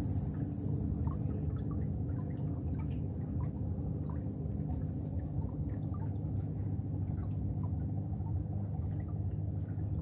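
Water dripping and trickling from a wet cast net as it is handled and picked over: many small scattered drips and ticks over a steady low hum.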